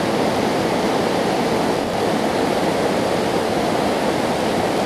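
Swollen river in high flow, a steady rush of fast water over rocks.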